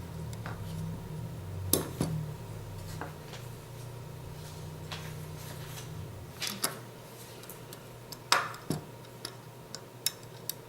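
Small metal airsoft gearbox parts clicking and tapping as they are handled, in scattered irregular clicks, the loudest about two seconds in and again after eight seconds. A low hum underneath stops about six seconds in.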